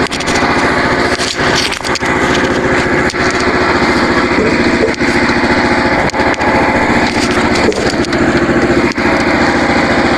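Small engine running steadily at constant speed.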